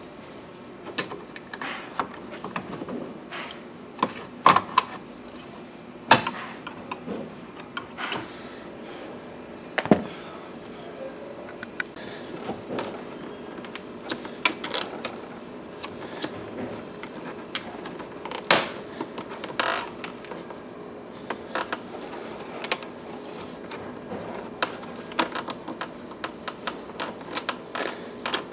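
Irregular clicks, knocks and light rattles of hand tools and metal and plastic parts being handled, with a few sharper knocks standing out, over a steady low hum.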